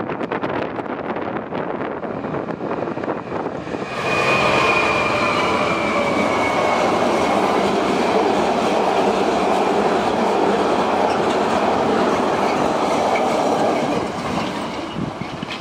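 Diesel-hauled ballast train passing close by: a steady rumble and clatter of loaded wagon wheels on the rails, with a faint high wheel squeal. It rises sharply about four seconds in and dies down near the end, with wind on the microphone while the train is still distant.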